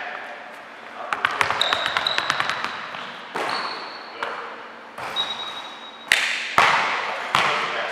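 Basketball shooting drill on a hardwood gym floor: a basketball bouncing and thudding several times with a ringing echo in the large gym, a quick run of light taps about a second in, and three short sneaker squeaks.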